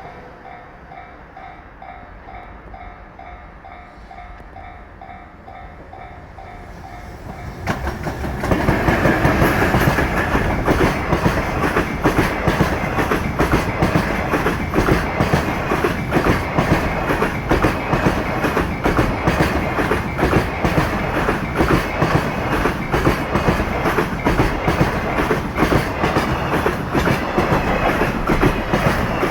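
A level-crossing warning bell rings in a steady repeating pattern, then about eight seconds in a JR Freight EF210 electric locomotive arrives suddenly and loudly, followed by a long string of container flat wagons whose wheels clack rapidly over the rail joints as they pass.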